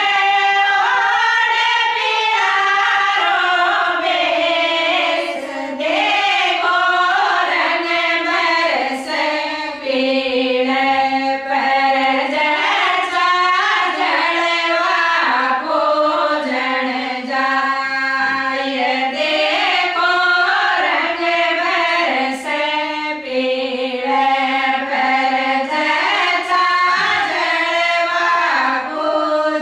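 A group of women singing a Rajasthani folk song together, a steady melodic chorus with short breaks between phrases.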